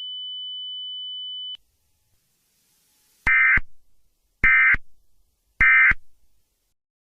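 A steady high electronic tone that cuts off about one and a half seconds in, then three short, identical buzzy data bursts about a second apart: the Emergency Alert System End-of-Message code, sent three times to close the alert.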